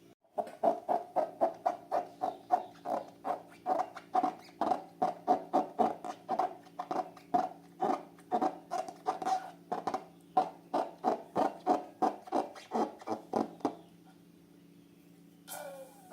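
Slime being squeezed by hand: a rapid, even run of wet squelches, about three a second, stopping about two seconds before the end, followed by one short squeak falling in pitch.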